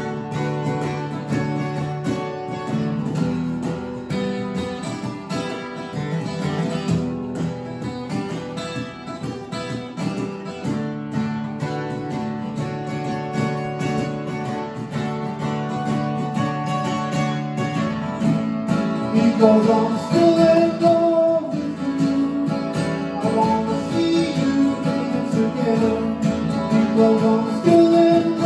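Acoustic guitar strummed and picked in a steady song accompaniment, with a man's singing voice coming in about two-thirds of the way through.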